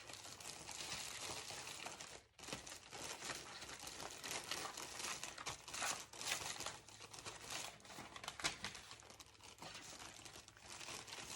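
Thin wrapping material crinkling and rustling as it is handled, in a run of irregular crackles.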